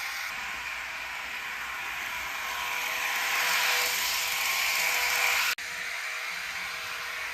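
Minitrix N-scale ICE1 model train running with its digital sound decoder: a steady hissing rush with a faint hum, swelling louder in the middle, dropping out for an instant about five and a half seconds in, then carrying on steady.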